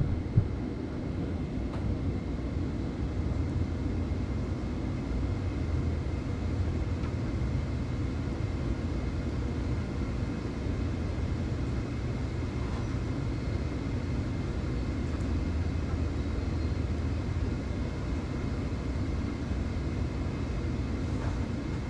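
Steady low rumbling noise that holds an even level throughout, with a faint thin high tone above it and no distinct knocks or splashes.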